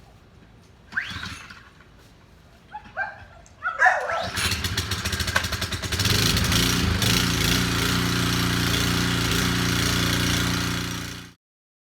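Gas engine of a 3100 PSI pressure washer being pull-started: several short cord pulls, then it catches about four seconds in and runs steadily until it cuts off suddenly near the end.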